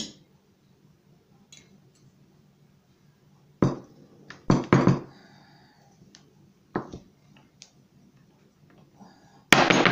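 Metal burger patty mold clinking and clanking as it is handled: a few short, sharp knocks, then a louder, longer clatter near the end.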